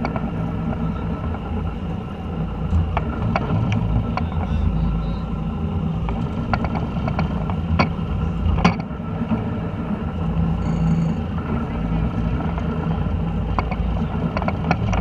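Boat engine running steadily, with a few sharp knocks and taps over it.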